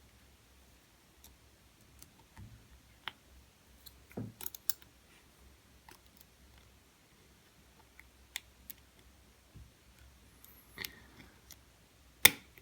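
Scattered small clicks and taps from hands handling gear. A few come close together about four seconds in, and one sharper click sounds near the end.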